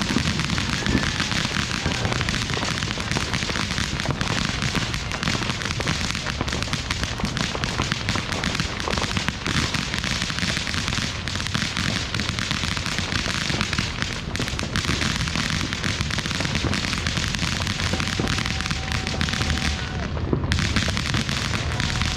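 Fireworks going off in a dense, unbroken crackle of many rapid pops and bangs.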